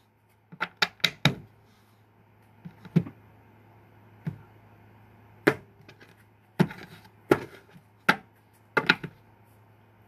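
Tarot cards handled and cut over a table: a series of sharp card slaps and taps, a quick cluster about a second in, then single ones and pairs every second or so, over a faint steady low hum.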